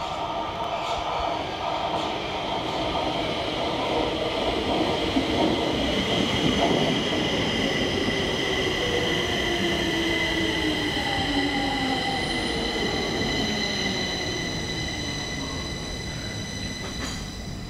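Stockholm metro train pulling in along the platform and slowing: an electric whine that falls steadily in pitch as it brakes, over steady high-pitched wheel squeal. It is loudest around the middle, as the cars pass close.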